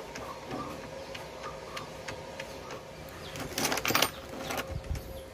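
Hand-handling noise from threading thin welding wire through a contact tip: scattered light clicks, and a short scratchy rustle about three and a half seconds in. A faint steady hum sits underneath.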